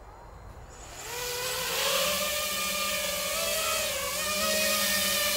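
Eachine Wizard X220 FPV racing quadcopter's brushless motors and propellers spinning up for take-off about a second in, then a steady high whining buzz as it flies, its pitch wavering with the throttle.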